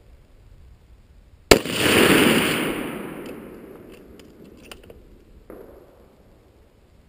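A single sharp rifle shot from an FN SPR A3G, a .308 Winchester bolt-action rifle, about a second and a half in. It is followed by a loud rolling echo that fades over about three seconds, with a few faint clicks near the end.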